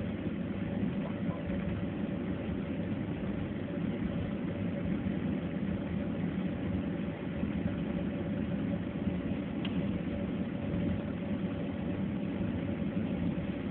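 Airliner cabin while taxiing: the jet engines run at low power, a steady low hum with a faint higher tone held above it.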